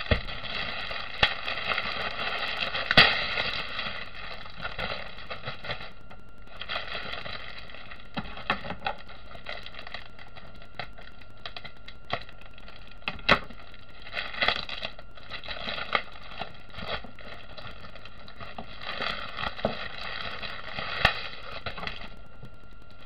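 Plastic packaging crinkling and crackling as a rolled diamond-painting canvas is pulled from a plastic mailer bag and unrolled, with sharp crackles now and then, the loudest about three seconds in and again around thirteen seconds.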